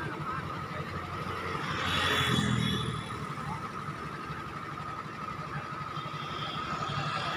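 Street ambience with a motor vehicle passing by about two seconds in, its noise swelling and fading, over a steady high-pitched whine.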